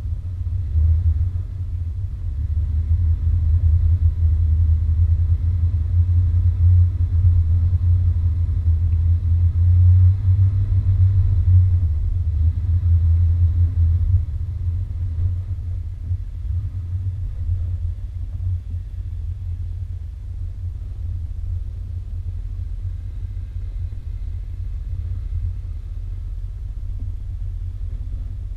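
Off-road vehicle engine running low and slow as a steady low rumble while crawling over slickrock. It is louder for the first half, under load up the steep rock face, and eases off after about 14 seconds as the slope levels.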